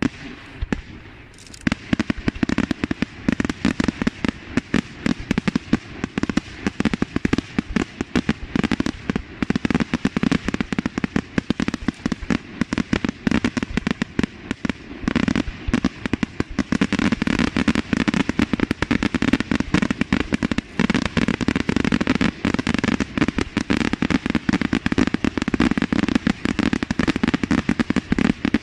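Aerial fireworks display: a dense, rapid barrage of shell bursts and crackling stars, starting about a second and a half in and going on without a break.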